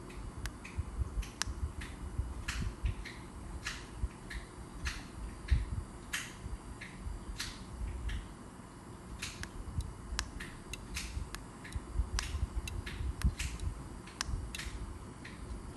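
Repeated sharp clicks at an irregular pace, roughly one or two a second, as the push buttons of a four-button 433.92 MHz replacement gate remote are pressed, over a low rumble of handling.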